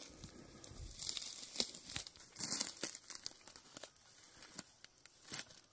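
Footsteps pushing through dry weeds and brush: irregular crackling and rustling of dead stalks and sticks underfoot, coming in uneven bursts.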